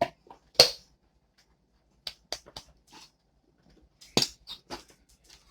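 Objects being rummaged through and handled, a string of sharp clicks and knocks, the loudest about half a second in and again about four seconds in.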